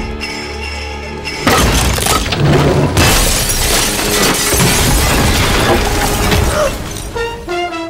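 Music, joined about a second and a half in by a long, loud stretch of crashing and shattering glass as a shelf and a table come down and things smash. It eases off near the end, leaving the music.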